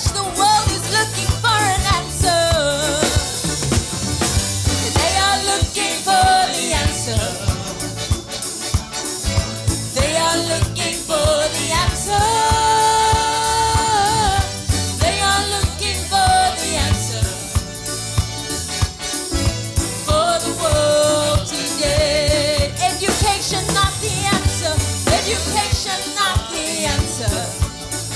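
Upbeat gospel worship music from a church band: drum kit and bass keeping a steady groove under a winding melodic lead line.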